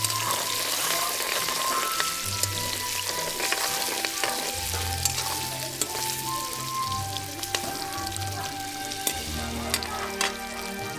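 Small whole boiled potatoes sizzling as they fry in hot oil in a steel kadhai, with a metal ladle clicking and scraping against the pan as they are stirred.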